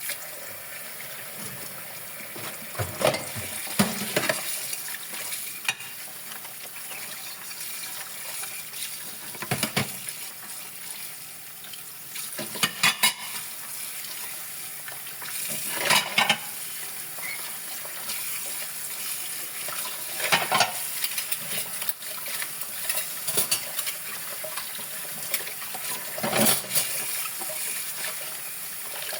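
Dishes being washed by hand at a sink: a steady hiss of water and scrubbing, with clinks and knocks of dishes every few seconds.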